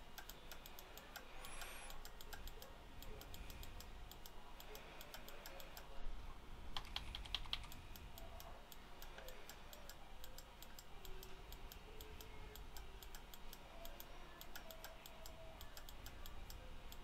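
Faint clicking and tapping of a computer keyboard and mouse, with a short cluster of louder clicks about six to seven seconds in.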